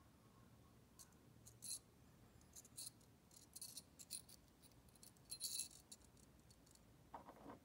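Faint, small metallic clicks and light rattles from fishing tackle being handled: a snap swivel, slotted brass head and hook on a thin wire leader, scattered over several seconds, with a short soft scrape near the end.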